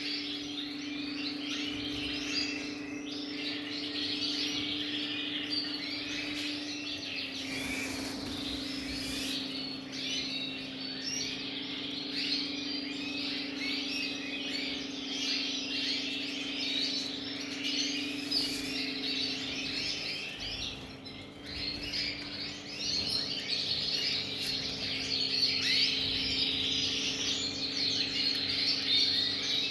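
A flock of about thirty domestic canaries chirping and trilling all at once, a dense, unbroken chatter of many birds. A steady low hum runs underneath.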